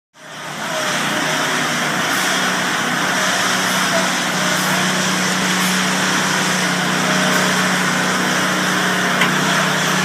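Concrete mixer truck running steadily while it discharges concrete down its chute: a constant engine hum under a broad, even hiss, fading in over the first second.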